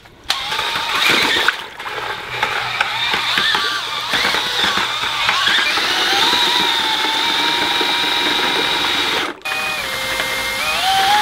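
Cordless drill spinning a paddle mixer through sugar water in a plastic bucket, its motor whine drifting in pitch with the trigger. It stops briefly about nine seconds in, then restarts slower and speeds up near the end.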